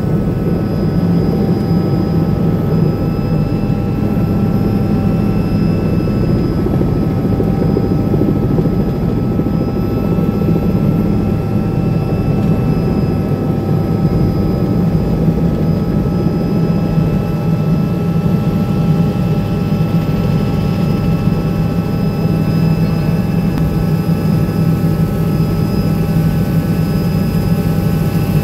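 Helicopter engine and rotor noise heard from inside the cabin: a loud, steady drone with thin constant whines above it, as the helicopter moves off the apron and climbs away.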